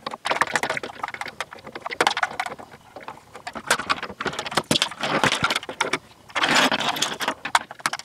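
Screwdriver and hands working on a plastic toy housing: irregular clicks, scrapes and rattles as screws are backed out and the plastic bottom panel is lifted off, with a longer scraping rustle about six and a half seconds in.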